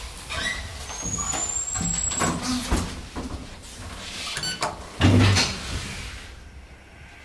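Small hydraulic elevator's doors being shut as the car is boarded: scattered clicks and knocks, a floor button pressed about four seconds in, then a door closing with a heavy thud about five seconds in.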